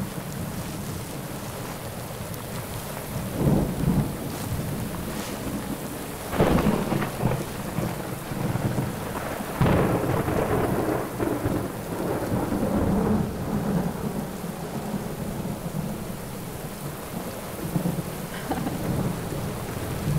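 Heavy rain pouring down steadily, with several louder low rumbling surges about three and a half, six and a half and nearly ten seconds in.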